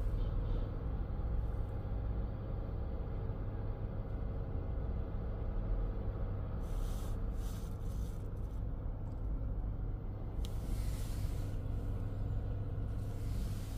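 Fire engine running steadily with a low drone. Bursts of hissing come in briefly about halfway and again for the last few seconds.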